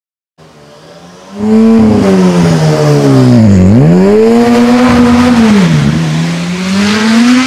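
Zakspeed Ford Capri Turbo racing car's turbocharged engine revving at a standstill. It comes in loud about a second and a half in, its pitch sags low and climbs back, then dips again and rises near the end.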